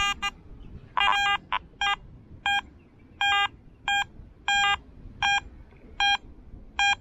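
Garrett AT Gold metal detector giving a string of short beeps of one steady mid pitch, about one and a half a second in an uneven rhythm, one for each pass of the coil over the target. It is the detector's response to a rum bottle cap that reads about 78 on the screen.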